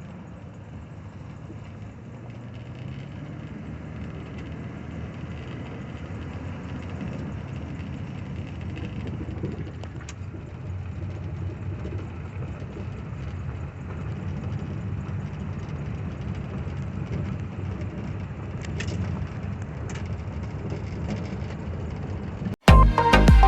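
Truck engine running with a steady low rumble, growing a little louder over the first few seconds. Music cuts in abruptly about a second before the end.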